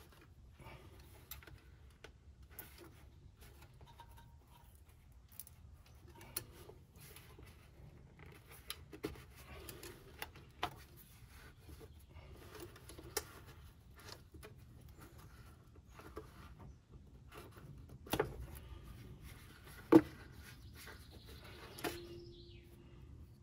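Hands handling hoses and fittings in a car's engine bay, pulling them off and setting them aside: scattered small clicks and knocks, with one sharp click near the end.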